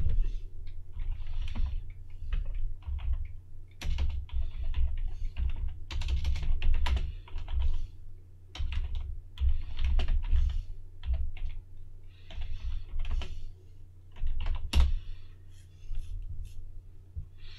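Typing on a computer keyboard: bursts of keystroke clicks with short pauses between words, each press carrying a dull thud into the desk, and one louder keystroke about fifteen seconds in as the command is entered.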